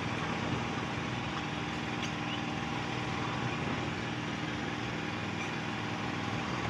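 Small engine running steadily at a constant speed with an even hum, typical of the generator that powers a lift-net platform's lamps.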